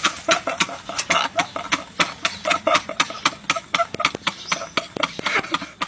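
Two men laughing uncontrollably: rapid, breathless bursts of laughter and gasps, several pulses a second, one of them laughing into his hand.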